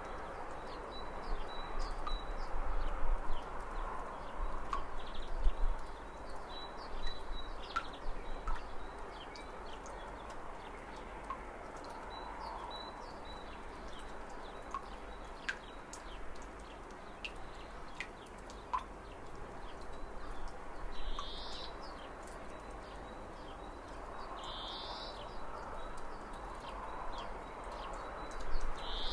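Outdoor ambience of small birds chirping: short scattered chirps throughout, with a few louder calls in the second half, over a steady background hush. A low rumble runs through the first few seconds.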